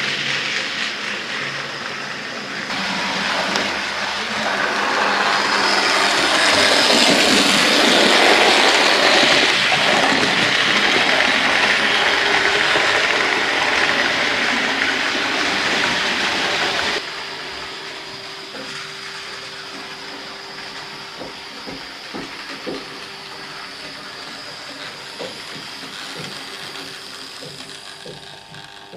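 Model trains running on a OO/HO layout: a dense rushing rattle of motors and wheels on track swells through the first half. About 17 s in it drops suddenly to a quieter, steady motor hum with scattered clicks of wheels over rail joints.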